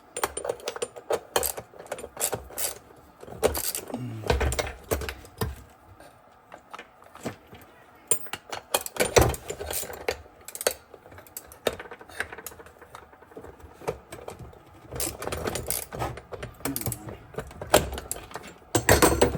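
Metal tools clinking and knocking against a small wagon wheel rim while a wrench works at a stubborn bolt: irregular clicks and clanks with a few louder knocks.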